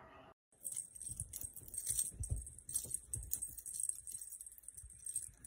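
A cat plays with a wand toy on a quilted bed: irregular soft thumps of paws landing, with crackly rustling from the toy, starting about half a second in.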